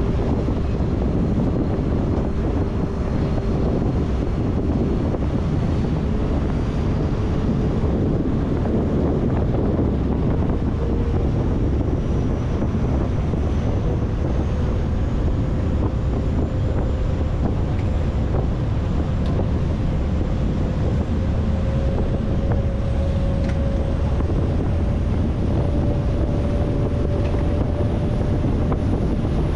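Passenger ferry under way: a steady rush of engine, water and wind buffeting the microphone, with a faint whine that rises slowly in pitch.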